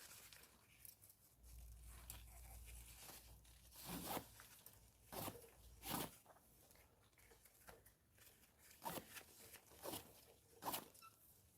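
A loosened spark plug being unscrewed with a wrench from the engine: several short, faint rasping strokes spaced a second or more apart.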